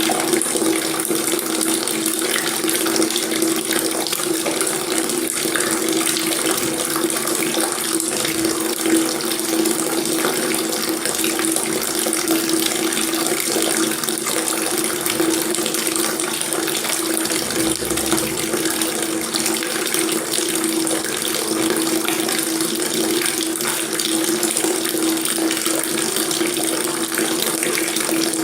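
Water tap running steadily, a continuous stream splashing into a sink or basin, with a steady low ring in the splash.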